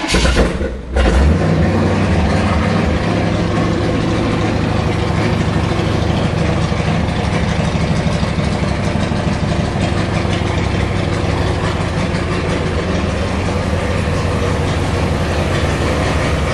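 Chevrolet 350 small-block V8 in a Model T coupe hot rod, catching about a second in and then idling steadily. The owner says it still needs some carb tuning.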